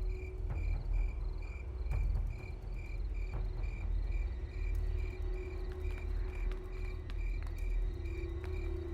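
A cricket chirping steadily, about two to three short chirps a second, over a steady low rumble.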